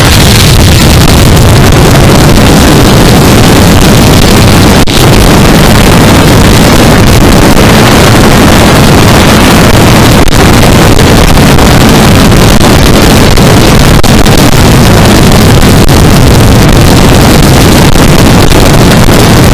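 Wind rushing over the rider's camera microphone, loud enough to overload it, over the steady drone of a Yamaha R3's 321 cc parallel-twin engine cruising at speed. There is one brief dropout about five seconds in.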